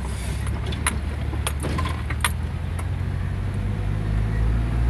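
Engine and road noise of a moving vehicle heard from inside the cab: a steady low drone that grows louder near the end, with a few sharp rattles in the first half.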